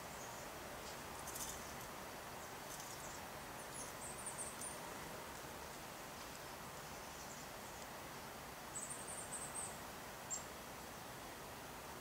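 Small birds calling in short, high chirping twitters, two brief bursts a few seconds apart, over a steady faint outdoor hiss, with a few light ticks.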